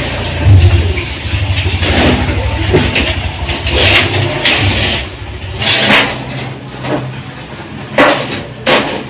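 A thin metal body sheet and an aluminium frame being handled and fitted: scraping and sharp metallic rattles, four of them loud. Under the first half there is a low engine-like hum.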